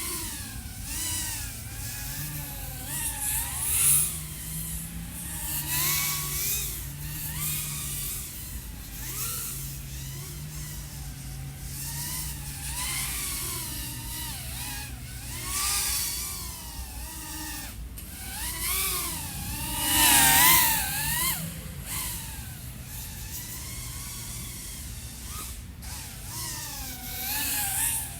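iFlight AOS 3.5 V5 3.5-inch FPV quadcopter with XING 1504 3100KV brushless motors flying, its motors and propellers whining in a pitch that rises and falls constantly with the throttle. It surges loudest about 4 seconds in and again about 20 seconds in.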